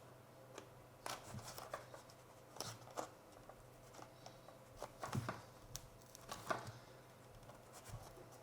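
Handling sounds of foam wing parts and plastic hinges being pushed together by hand: irregular small clicks and brief rustles, a few louder scrapes about five and six and a half seconds in.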